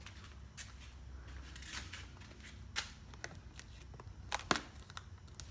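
Scattered light clicks and taps of small hard objects being handled, with the sharpest click about four and a half seconds in.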